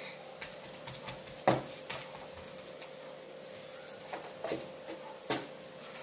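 Wooden rice paddle pressing and patting sushi rice flat in a wooden sushi tub: a few sharp taps, the loudest about a second and a half in, over a faint steady hum.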